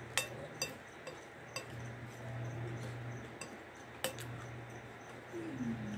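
Metal spoon clinking against a glass bowl while scooping dry farofa, about four sharp clinks, the last and loudest about four seconds in.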